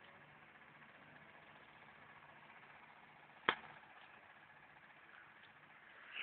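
Faint steady background hiss, broken once by a single sharp knock about three and a half seconds in.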